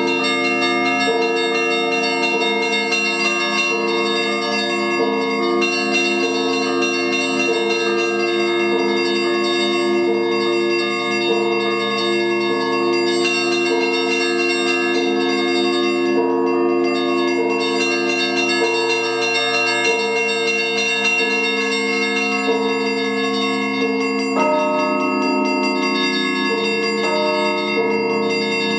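Russian Orthodox church bells rung by one ringer in a continuous improvised peal (zvon): several bells of different pitches struck over and over in overlapping patterns, their tones ringing on into one another. The pattern of bells changes about three-quarters of the way through.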